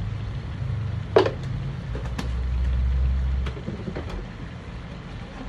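Kitchen sounds at a wok on the stove: a steady low hum that swells for a second or so in the middle, with one loud sharp knock about a second in and a few fainter clicks later, as from a utensil against the pan.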